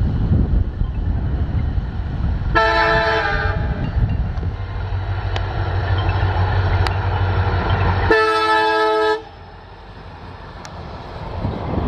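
EMD diesel locomotive passing with its engine running in a steady low drone, sounding its multi-tone horn twice, each blast about a second long and the two about five seconds apart. Soon after the second blast the engine sound drops away suddenly, and the rumble of the train on the rails builds again near the end.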